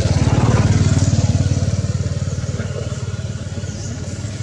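A motor vehicle's engine passing by: a low pulsing hum that swells to its loudest about a second in, then slowly fades away.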